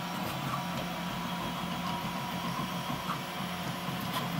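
Home-built Smartrap-style 3D printer running a print: its stepper motors hum steadily, with low tones that shift and break off as the axes move.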